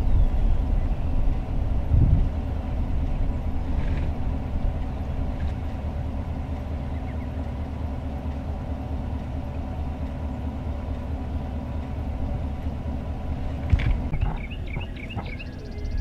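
Vehicle engine idling with a steady low hum. Near the end there is a sharp click, then a short run of quick high bird chirps.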